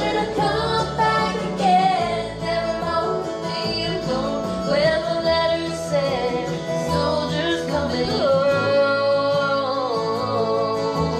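A woman singing karaoke into a handheld karaoke microphone, a sung melody over a music backing track with guitar.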